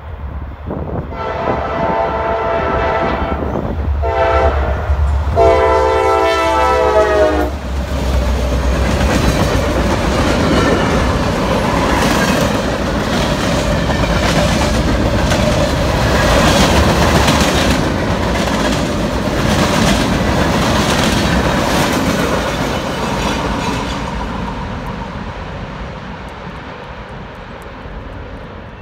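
Freight locomotive horn sounding a long, a short and a long blast, the chord of several notes over a low rumble: the end of the standard grade-crossing signal. Then the freight cars roll past, rumbling, with clickety-clack of wheels over rail joints, and the sound fades away over the last few seconds.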